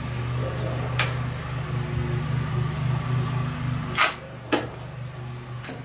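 Tools clicking on car battery terminals as they are loosened and disconnected: a few sharp metallic clicks, one about a second in, a pair around four seconds in and one more near the end, over a steady low hum that drops at the click around four seconds.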